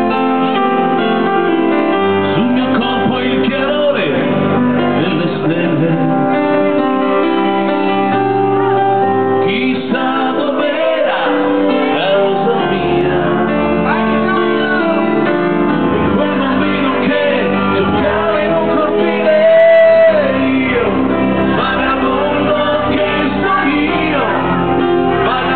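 Live dance band playing a song through a PA, with a singer and keyboards over a stepping bass line; a louder held note comes about twenty seconds in.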